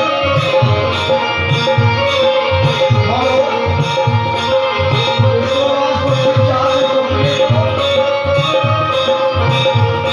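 Devotional bhajan music without singing: a tabla beat with regular deep bass strokes, under a steadily held note and a melody line.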